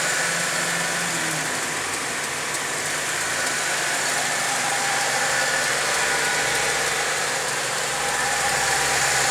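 Holden VE Commodore SV6's 3.6-litre V6 idling steadily.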